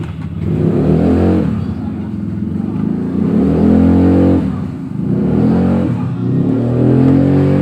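An engine revving up and down in three surges, its pitch rising and falling with each.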